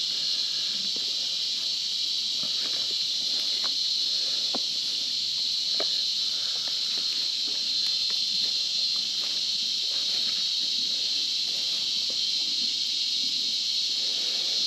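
A steady, high-pitched chorus of insects that drones without a break. Faint scattered ticks and rustles of rope being handled close by sit underneath it.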